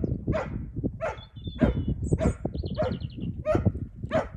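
Small dog barking repeatedly in short, sharp yaps, about seven in quick succession, while running an agility course.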